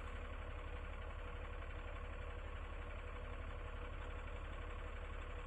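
Cat skid steer's diesel engine running steadily, a constant low rumble with a faint steady hum above it.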